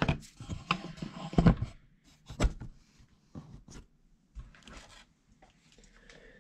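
Clattering knocks and handling noise as the camera is picked up and repositioned, loudest about a second and a half in. This is followed by a few short scattered rubbing sounds and clicks.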